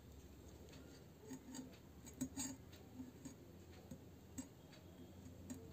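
Faint handling sounds of a meal on steel tableware: fingers tearing deep-fried bread and dipping it into curry in a steel bowl, giving light crackles and small clicks. The sharpest ticks come between about one and two and a half seconds in and once more near four and a half seconds.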